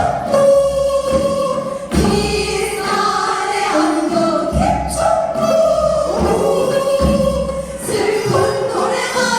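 Korean folk song (minyo) sung with traditional accompaniment, the melody held and bent in long sung phrases, with deep drum strokes about every two seconds.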